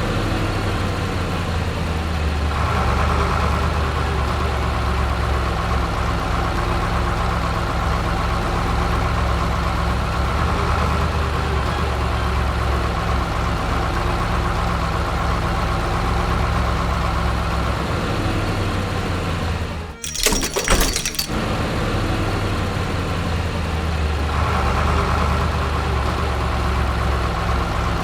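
A heavy vehicle's engine running steadily over background music, with a short clatter of breaking about two-thirds of the way through.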